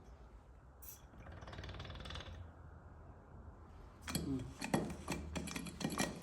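Metal parts of a portable hydraulic fitting press clinking and knocking as they are handled, in quick irregular clicks from about four seconds in. Before that there is a low hum and a short soft hiss.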